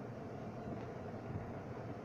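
Steady low rumble inside a moving car's cabin on a wet road in the rain: engine and road noise, with no sudden sounds.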